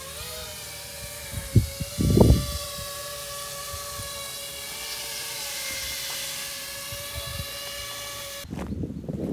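Multirotor drone hovering, its propellers giving a steady even-pitched whine. Two loud low rumbles, like wind hitting the microphone, come about one and a half and two seconds in, and the whine cuts off suddenly near the end.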